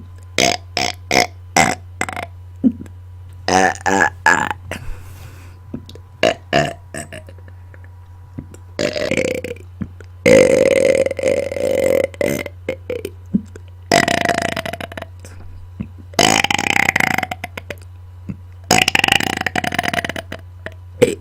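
A person belching on command, over and over: a quick run of short burps in the first several seconds, then five longer, drawn-out belches. The loudest and longest lasts nearly three seconds, about ten seconds in.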